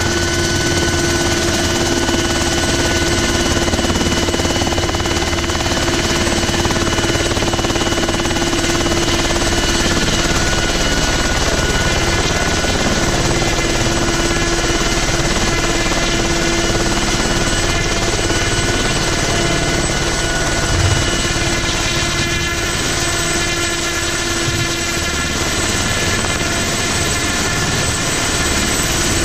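Ultrasport 496 ultralight helicopter running at flight power, engine and main rotor making a steady drone with a rapid low beat, as it lifts off and holds a low hover.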